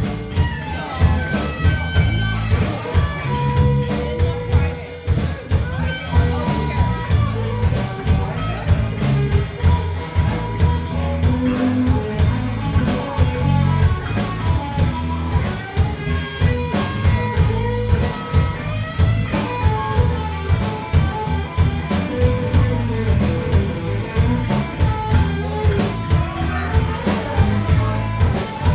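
Rock band playing an instrumental passage: guitar over a drum kit keeping a steady beat.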